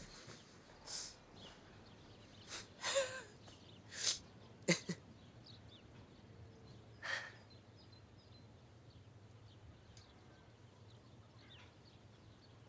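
A few short, breathy stifled laughs and exhales from a person, spread over the first seven seconds, then only faint background hum.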